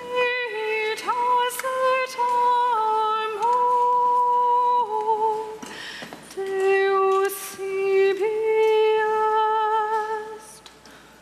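A woman singing solo and unaccompanied, in long held notes that step between a few pitches, with a short breath about six seconds in.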